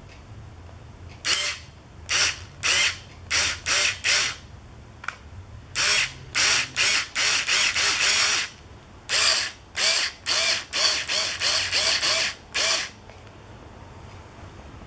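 Cordless drill fitted with a flexible screwdriver shaft extension, run in many short trigger bursts, each a brief whirr that spins up and stops. The bursts come in quick groups of two to eight, with a short pause about five seconds in and another past eight seconds.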